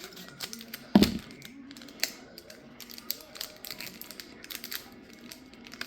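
Foil Pokémon booster pack wrapper being handled and opened: an irregular run of crinkles and sharp clicks, with one louder knock about a second in.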